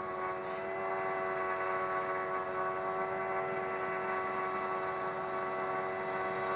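Steady helicopter engine drone heard from aboard, a constant hum with a whine that holds one pitch throughout.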